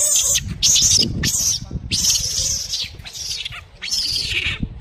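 Baby macaque screaming: a rapid string of short, shrill squeals, one after another, some falling in pitch, over a low rumble.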